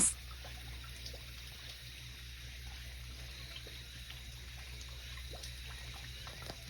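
Quiet room tone: a steady low hum with a few faint ticks.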